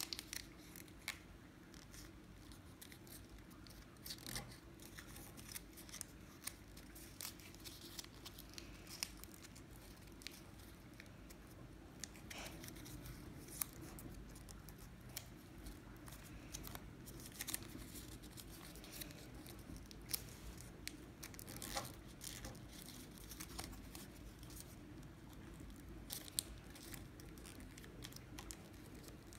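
Origami paper being folded and creased by hand: faint, irregular crinkling and rustling with scattered small crackles as the folds are pressed, over a low steady hum.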